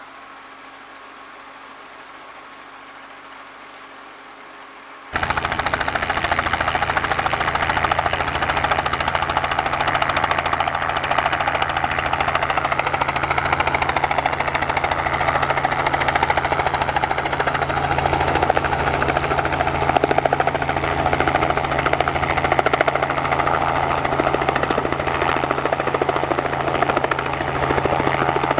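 Helicopter cabin noise: the engine and rotor run loud and steady, with a pulsing low beat from the blades. It cuts in abruptly about five seconds in, after a faint, muffled hum.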